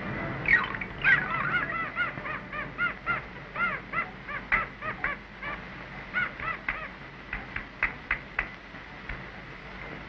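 A quick run of short bird-like calls, each rising and falling in pitch, about three a second. They end in a few sharp clicks after about seven seconds.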